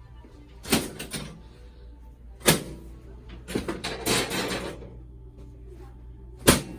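Sharp cracks and clacks of a chiropractic adjustment being given: two quick snaps about a second in, another a little after two seconds, and a last one near the end, with a stretch of rustling movement in between.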